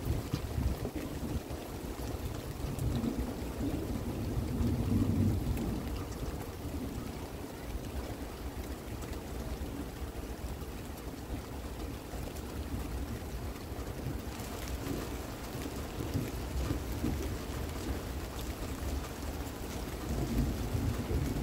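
Distant thunder rumbling in low, rolling swells over steady rain, the rumble rising about three to five seconds in and again near the end.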